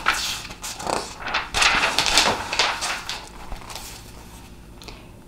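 Rustling and scraping of stiff grid-paper cards being handled and swapped, loudest a couple of seconds in and fading away after that.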